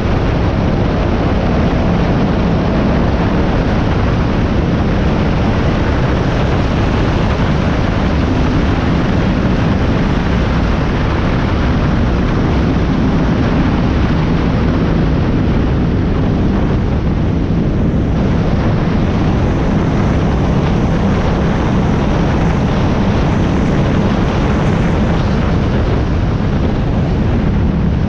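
High-performance powerboat running fast on open water: a loud, steady rush of engine noise mixed with wind over the microphone.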